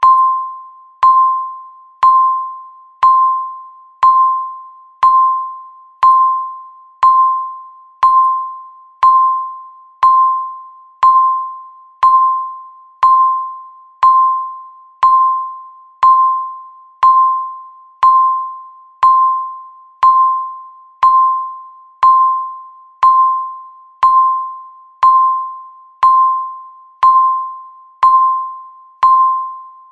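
Countdown timer beeping once a second: each beep is a single fairly high tone that starts sharply and dies away before the next, about thirty in a row.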